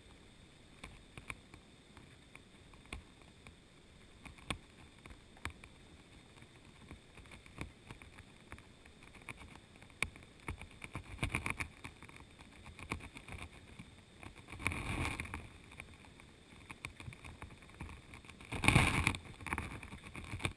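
Muffled underwater sound picked up by a camera in a waterproof housing on the riverbed: scattered small clicks and knocks, with two louder rushing bumps about fifteen and nineteen seconds in.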